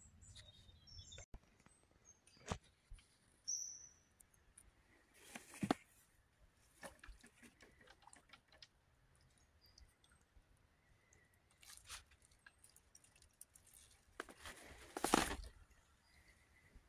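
Quiet lakeside ambience with scattered soft rustles and knocks, the loudest about fifteen seconds in, and a short high chirp about three and a half seconds in.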